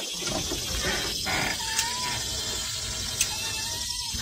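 A cat meowing twice, two short high calls about two seconds apart. Under them are the rustle and knocks of cardboard boxes being handled.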